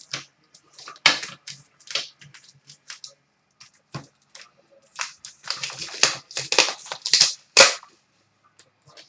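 Wrapping and cardboard of a hockey card box being slit and torn open by hand: scattered sharp crackles and rips, with a dense run of tearing from about five seconds in to nearly eight.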